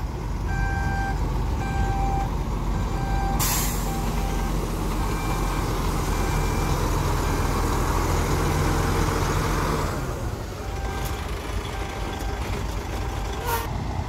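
Heavy dump truck's diesel engine running, with a reversing alarm beeping about one and a half times a second. The beeping breaks off with a short, sharp air-brake hiss about three seconds in, and the engine grows louder for several seconds. Later the beeping returns faintly, with another brief air hiss near the end.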